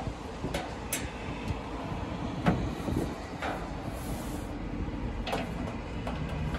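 Scattered metal clicks and taps from a screwdriver working on the screws and panels of a metal LED display cabinet, over a steady low rumble.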